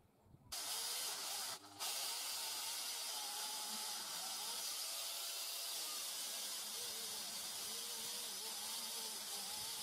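Angle grinder converted to a chainsaw, with an Oregon Double Guard 91 bar and chain, running steadily with a high hissing whir. It starts suddenly about half a second in and drops out for a moment near two seconds.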